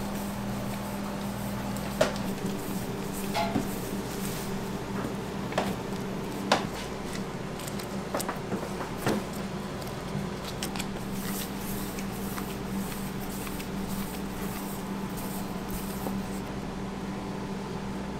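Steady hum of commercial kitchen equipment with a few sharp knocks and clatters from work at the prep counter, the loudest about two seconds and six and a half seconds in, fewer in the second half.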